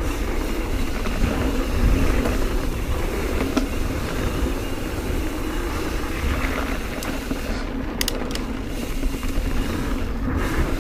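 Mountain bike rolling fast over dirt singletrack: steady tyre roar and rattle of the bike, with wind rumbling on the microphone. A couple of sharp clacks sound near the end as the bike jolts over bumps.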